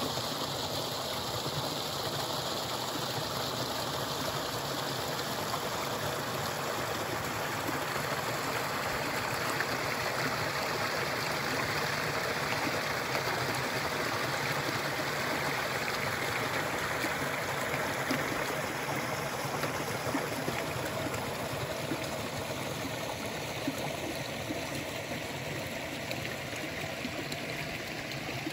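Small woodland brook running over mossy rocks and spilling down a low cascade: a steady rushing and splashing of water, somewhat louder in the middle.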